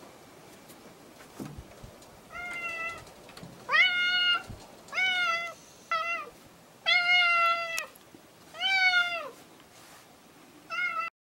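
Tabby cat meowing repeatedly: about seven separate meows, each well under a second long, beginning a couple of seconds in. The sound cuts off abruptly partway through the last meow.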